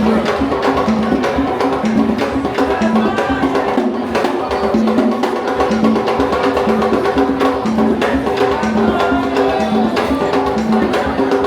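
Music with drums and clacking, wood-block-like percussion over a short repeating pitched figure.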